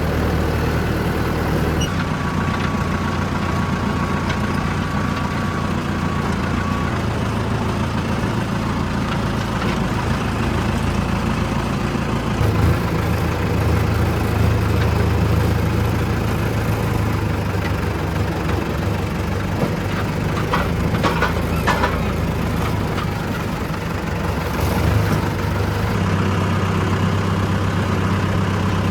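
Diesel engine of a Mahindra tractor with a backhoe attachment, running steadily, its note shifting a few times as the load changes. A few short knocks come about twenty seconds in.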